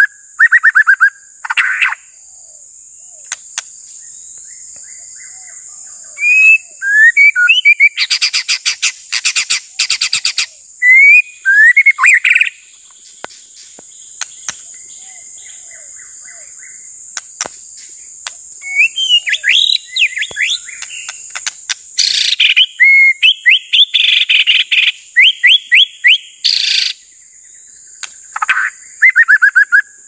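White-rumped shama singing loud, varied phrases: quick runs of repeated notes and sweeping whistles, in bursts with pauses of a few seconds between them. A steady high-pitched tone runs underneath.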